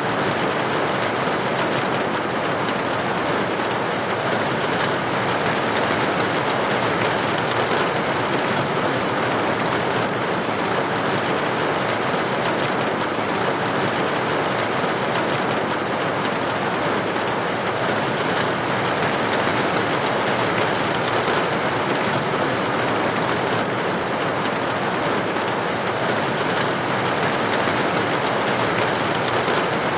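Steady rain on a window: an even, unbroken patter of raindrops with no single drops or other events standing out.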